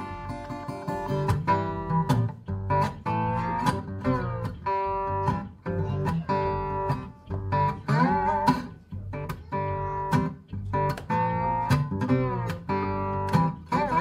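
Instrumental country-blues break on acoustic guitar: picked notes, several of which bend and glide in pitch, over the low notes of a washtub bass.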